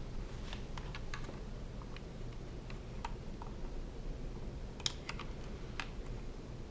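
Scattered light clicks and taps of small plastic parts and a cable plug being handled and fitted at a window blind's headrail, over a low steady hum.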